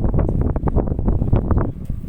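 Strong gusty wind buffeting the microphone, a loud rumbling that rises and falls in irregular gusts.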